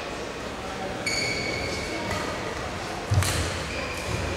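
Badminton shoes squeaking on the indoor court floor during a rally, with a sharp hit and a low thud about three seconds in.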